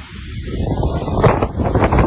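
Wind buffeting the microphone in gusts, a loud low rumble that builds up about half a second in.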